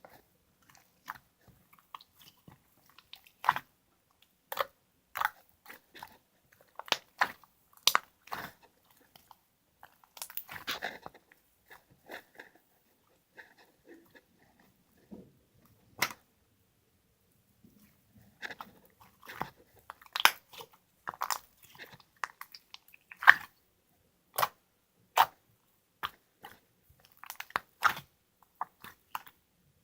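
Close-up crunchy chewing: irregular sharp crunches and clicks, with a quieter stretch of a few seconds around the middle.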